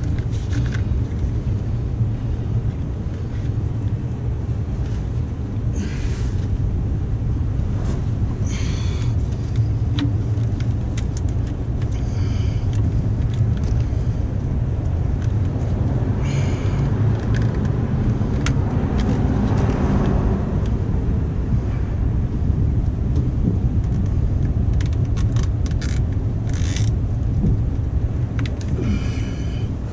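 A steady low rumble, with short rustling rattles every few seconds as cables in corrugated plastic wire loom are handled and fastened.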